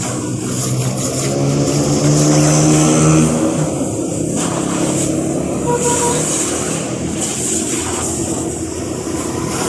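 A motor running with a pitched hum that grows louder and rises slightly about two seconds in, over a steady high hiss.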